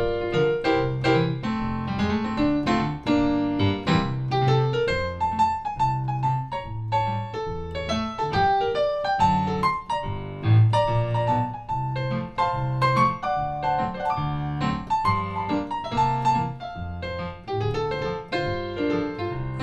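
Electronic keyboard played with a piano sound: an instrumental break between sung choruses, a steady bass line under chords and melody.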